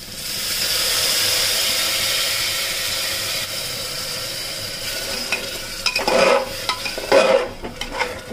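Water tipped into a pan of hot oil and fried spice paste, a loud sizzle that starts suddenly and slowly dies down. From about six seconds in, a few scrapes of a spoon stirring in the pan.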